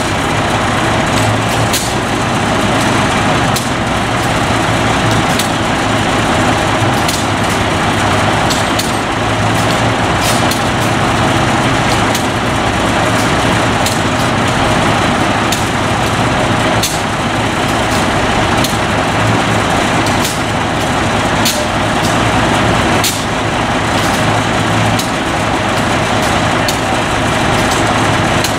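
Heavy diesel engine running steadily at a low hum, with frequent short sharp clicks about every second.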